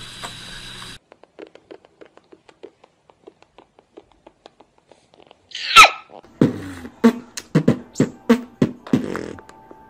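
Beatboxing: about six seconds in, one loud sliding vocal sweep, then a quick beat of mouth kick-drum and snare sounds, about three a second, lasting some three seconds. Faint clicking comes before it.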